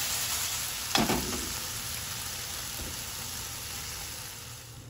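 Green pepper and bacon sizzling in a nonstick frying pan as they are stir-fried, with a single knock about a second in. The hiss eases off slightly near the end.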